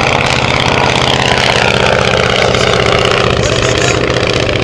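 Fleet 7 biplane's Kinner radial engine and propeller running steadily on a close fly-by, the pitch sliding down during the first couple of seconds as it passes.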